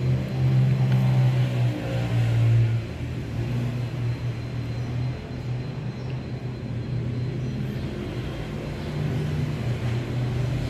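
Low, steady rumble of a running engine, swelling about two seconds in and then holding steadier.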